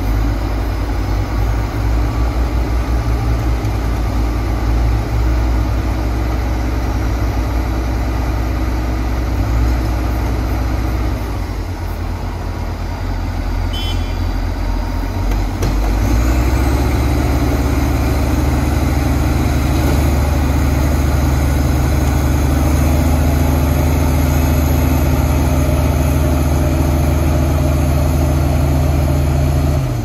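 Heavy diesel engine of earth-moving or logging machinery running steadily. It eases off for a few seconds about eleven seconds in, then runs louder and steady again from about sixteen seconds.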